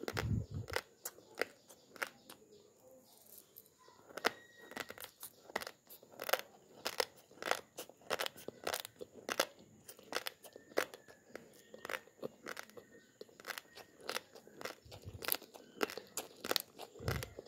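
Raw long-grain basmati rice being chewed: an irregular run of sharp, crisp crunches, several a second, as the hard uncooked grains crack between the teeth. A few short, dull low thumps come at the start and near the end.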